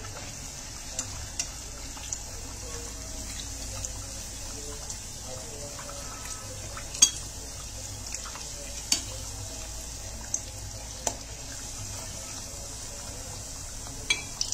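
A puri deep-frying in a steel kadai, in oil not yet fully hot: a steady sizzle with sharp clicks every second or two, the loudest about seven seconds in.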